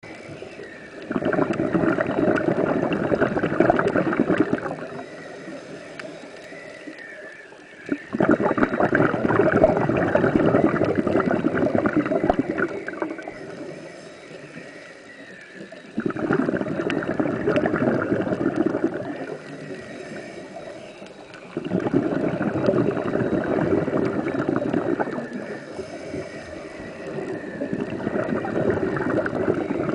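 Scuba diver breathing through a regulator underwater: five long bursts of exhaled bubbles, each a few seconds long, with quieter gaps for the inhales between them.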